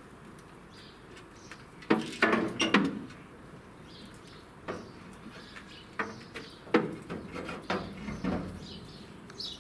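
Steel bonnet of a 1959 Ford F250 being held up and its prop rod set in place: sharp metal knocks and short scrapes, the loudest cluster about two seconds in and a few more in the second half.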